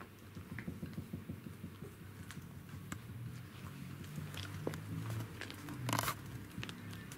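Pembroke Welsh corgi puppies play-biting with low, rumbling growls, over scattered light ticks and scuffles of paws on the wooden floor. A brief louder scuffle comes about six seconds in.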